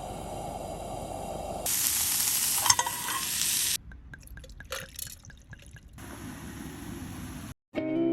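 Quick cuts of cooking sounds: food sizzling and hissing in a frying pan, with a few sharp clicks of utensils, loudest in the middle. After a brief silence near the end, acoustic guitar music begins.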